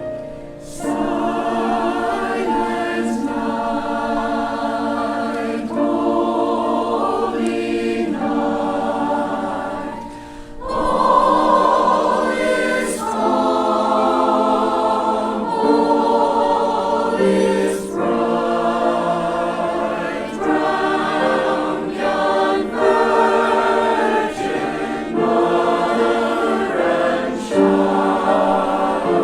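Church choir singing in full harmony, with held notes that change every second or two and a brief break about ten seconds in.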